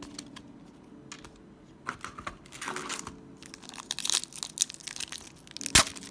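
Foil trading-card pack wrapper crinkling and cards being handled, with a run of small clicks and one sharp tap near the end.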